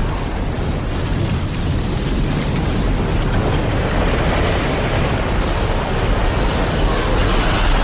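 Strong storm wind buffeting the microphone: a loud, steady low rumble mixed with hiss.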